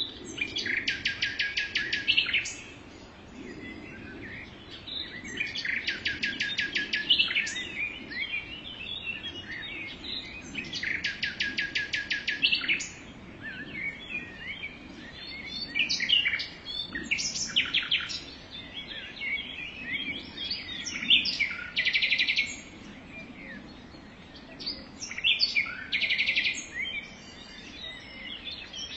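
Several birds singing: one repeats a rapid, even trill lasting about two seconds every few seconds, while others add short chirps and calls in between.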